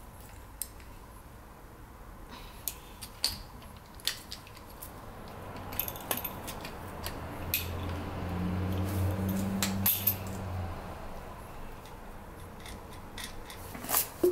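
Scattered sharp metallic clicks and clinks of hand wrenches, a ratcheting wrench and an open-end wrench, loosening the top nut on the rod of an old rear shock absorber so its top hat, bump stop and dust cover can come off. A low hum runs for about three seconds midway.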